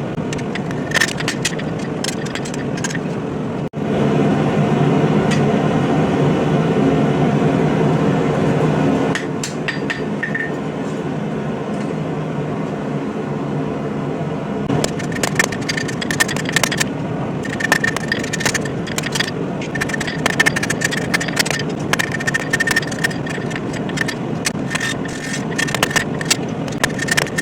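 Hammer blows on hot steel at the anvil, with the anvil ringing on each strike, over a steady rushing background noise. The blows are few in the first seconds. The background gets louder for about five seconds after a cut near the four-second mark. From about halfway through, the blows come in quick runs until the end.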